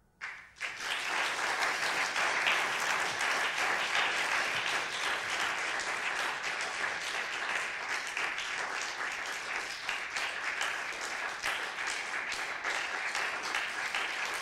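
Audience applauding, breaking out about half a second in and carrying on steadily after the final piano chord has died away.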